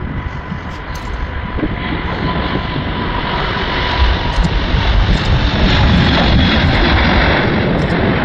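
Airbus A380's four jet engines at takeoff power as the airliner accelerates down the runway and lifts off. The noise grows louder over the first few seconds and then holds, with a steady whine that fades out about halfway through.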